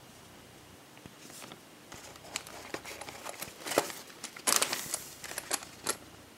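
Packing liner crinkling and cardboard ammunition boxes rubbing as a box is pulled out of a packed crate: irregular rustling and sharp crackles that build from about two seconds in and are loudest around the four-to-five-second mark.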